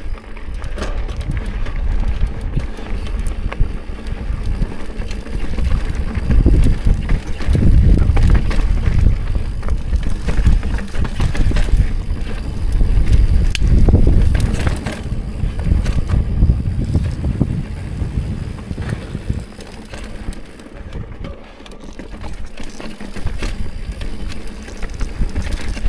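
Mountain bike being ridden over a rocky trail: a low rumble of tyres and air that swells and fades, with scattered clicks and rattles from the bike on rough ground.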